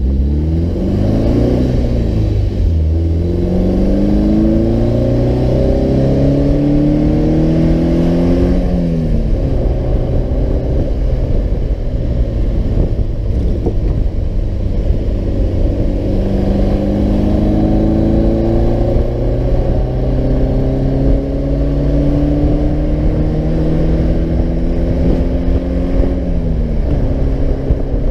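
Alfa Romeo Duetto Spider's twin-cam four-cylinder engine pulling up through the gears, heard from inside the open cockpit. The engine note climbs, drops at each of three upshifts, and holds steady for a while in the middle.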